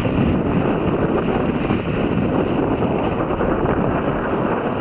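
Strong wind buffeting the microphone in a steady rush, with water rushing past the hulls of a Hobie 16 catamaran under sail.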